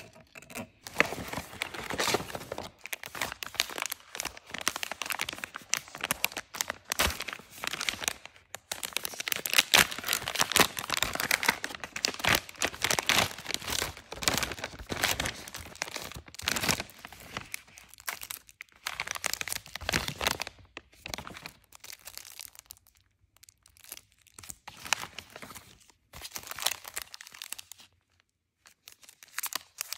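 Plastic packaging crinkling and rustling as it is handled and unwrapped: sticker sheets in plastic sleeves, then a phone case in a clear bag pulled from a frosted plastic bag. The sound comes in uneven crackly bursts with brief pauses.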